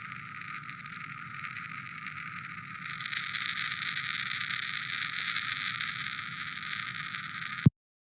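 Playback of a pump's dynamic pressure signal, high-pass filtered at 1200 Hz, heard as a hiss. About three seconds in it turns louder and crackly, with rapid popping from collapsing cavitation bubbles. It cuts off suddenly near the end.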